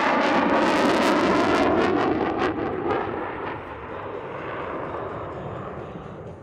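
F-16 fighter jet's engine noise, loud at first and then fading from about two seconds in as the jet moves away, with a few crackles as it goes.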